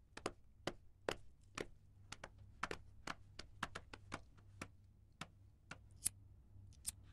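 A series of about twenty sharp, irregularly spaced clicks over a faint low steady hum.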